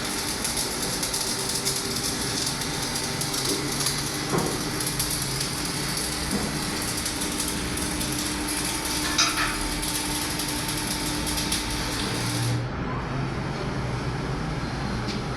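Workshop machinery running steadily with a hiss and a faint hum; the high hiss cuts off suddenly about twelve seconds in, leaving a lower running noise with occasional knocks.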